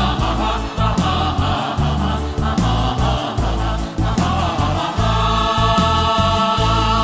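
Background music: voices singing together over a steady, pulsing bass beat, settling into long held notes near the end.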